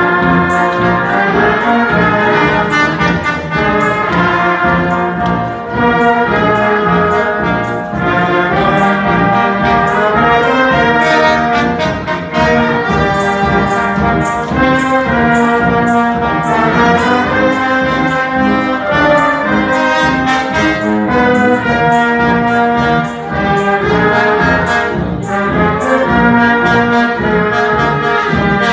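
Brass band of trumpets and lower brass playing a dance tune with a steady, regular beat.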